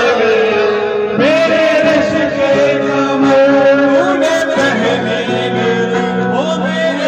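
Live amplified music: a male singer holding long, drawn-out notes into a microphone over a Korg Pa700 arranger keyboard accompaniment.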